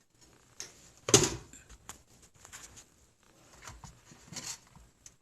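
Clatter of a hot microwave-safe bowl and its cover being handled: one sharp knock about a second in, then a few lighter knocks and clicks.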